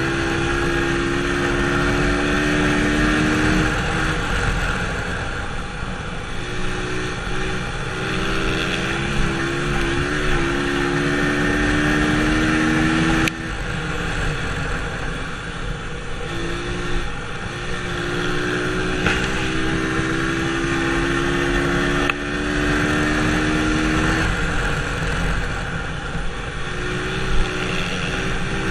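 Dirt bike engine heard from on the bike, running hard on the straights and dropping in pitch as the throttle is backed off for each turn, several times over, with wind noise.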